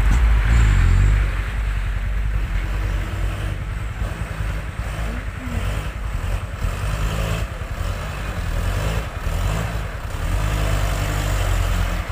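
Diesel engine of a loaded Mitsubishi light truck pulling through deep mud, a low, steady engine note that is loudest for about the first second and then runs on a little softer, shifting slightly in pitch with the throttle.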